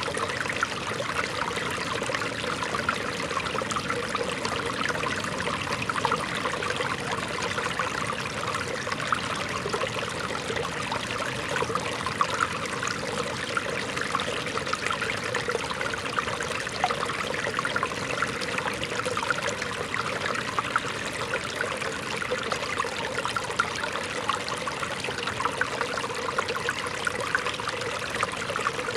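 Shallow rocky stream babbling and trickling over stones, a steady even sound.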